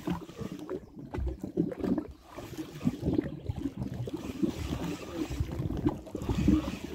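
Small waves lapping at the water's edge, with wind buffeting the microphone in an uneven low rumble.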